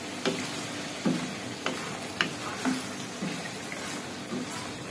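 Mixed vegetables cooking in sauce in a metal wok over a gas flame, a steady hiss, while a spatula stirs them and knocks and scrapes against the pan several times.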